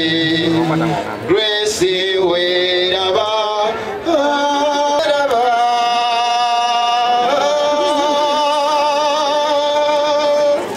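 A man singing slow, long held notes with vibrato, his pitch stepping up and down every second or two.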